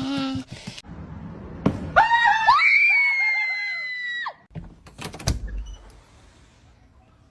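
A loud, high scream lasting about two seconds, followed about a second later by a few sharp knocks or thuds.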